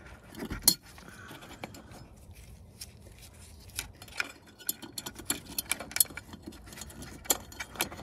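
Irregular light clicks and small rattles of parts being handled while fog lamp bulbs are fitted into a car's fog lamp. The clicks come thicker in the second half.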